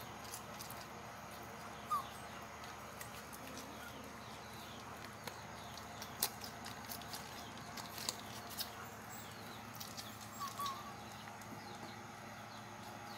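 Puppies nursing at a mother dog's teats: faint scattered clicks and smacks of suckling, with a short high squeak about two seconds in and a couple more near the end.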